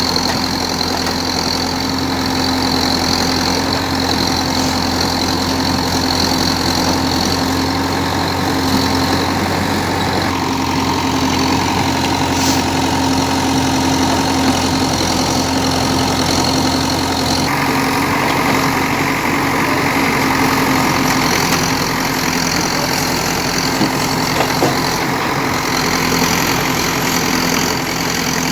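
JCB digger's diesel engine running steadily at a low, even speed.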